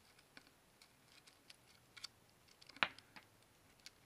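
Light, scattered plastic clicks and ticks from a Blackberry Z10's LCD assembly and frame being handled and worked apart with a thin pry tool, with one sharper click nearly three seconds in.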